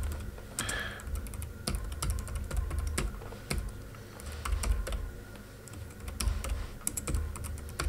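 Typing on a computer keyboard: irregular key clicks at an uneven pace.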